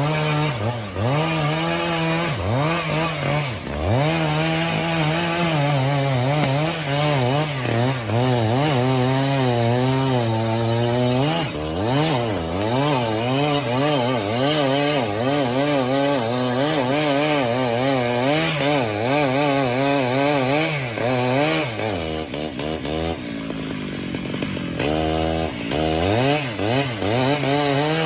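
Chainsaw cutting through a big tree. The engine note wavers and dips as the chain loads up in the wood. Near the end it falls back to a lower, quieter note for a couple of seconds, then revs up again.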